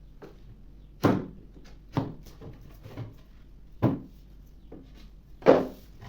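Four sharp knocks on wood, a second or two apart, the last one the loudest, with lighter clicks and taps in between.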